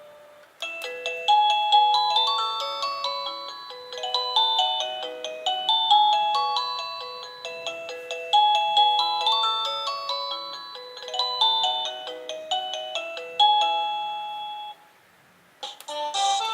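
INTENDVISION wireless doorbell chime receiver playing one of its electronic chime tunes: a tinkling melody of quick notes repeated in several phrases. It stops about 15 seconds in, and the next chime tune begins just before the end.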